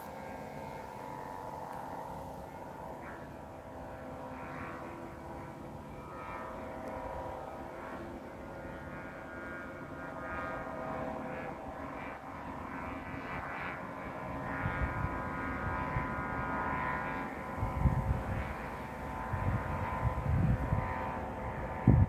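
Kite hummer droning high in strong wind: a steady buzzing hum of several held tones that waver slightly. Over the last several seconds, wind rumbles on the microphone in gusts, the loudest just at the end.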